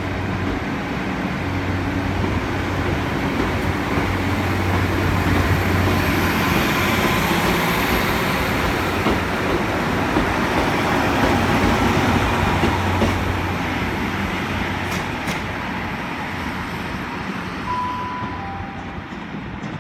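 Class 153 and Class 150 Sprinter diesel multiple units pulling out: the diesel engines hum low while the wheels and rail rumble grows louder. The rumble is loudest around the middle and then fades as the train draws away.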